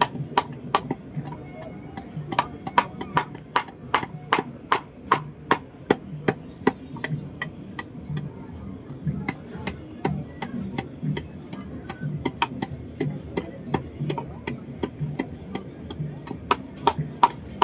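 Hand hammer tapping a carving chisel into a wooden model-boat piece: a steady series of sharp taps, about two to three a second, with a few short pauses.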